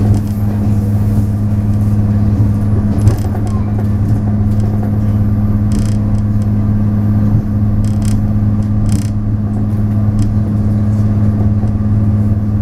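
Taiwan Railways DR3000 diesel multiple unit running at speed, heard on board: a loud, steady low drone from its diesel engine, with a few short sharp noises now and then.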